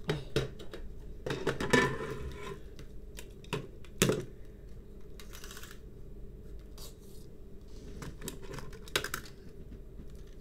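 Handling noise: irregular clicks, taps and rustles as a clear plastic box is handled and a tape measure is pulled out along a diamond painting canvas. The sharpest click comes about four seconds in, and another about nine seconds in.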